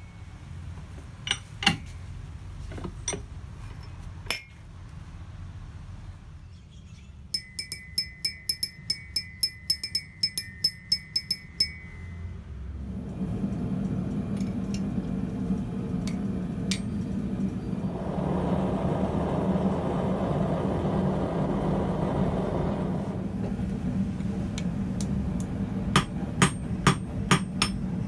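Light metal clicks and handling, then a few seconds of quick taps with a high metallic ring. A steady low hum and a spell of rushing noise follow. Near the end, hammer blows on red-hot steel on the anvil begin, about three a second.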